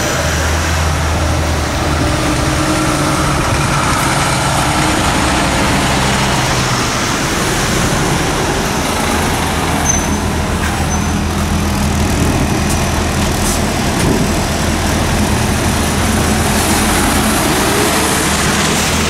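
Articulated diesel lorries with refrigerated trailers driving slowly past and turning, engines running steadily under tyre and traffic noise. Two short high squeaks come about halfway through.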